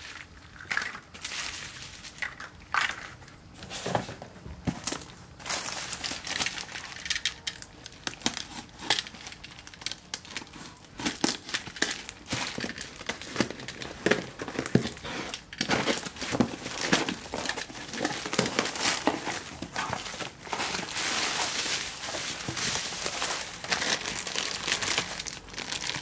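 Plastic packaging and bubble wrap crinkling and rustling as a parcel of toys is unpacked by hand. It comes as many short crackles, thicker and louder in the second half.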